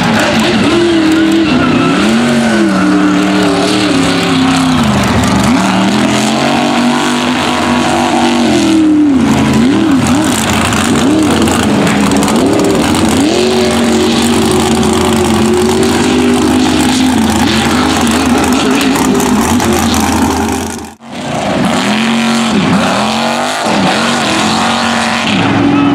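Mud racing trucks' V8 engines revving hard, their pitch surging up and down over and over as the trucks tear through the mud pit. The sound drops out briefly about three-quarters of the way through.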